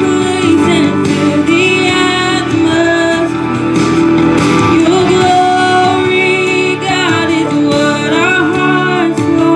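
A woman singing a worship song into a microphone, with electronic keyboard accompaniment; some notes are held with vibrato.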